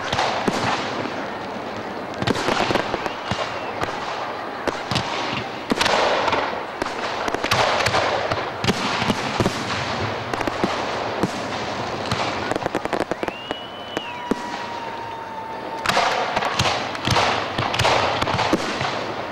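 Aerial fireworks going off in quick succession: a dense run of bangs and crackling, with a couple of short whistles.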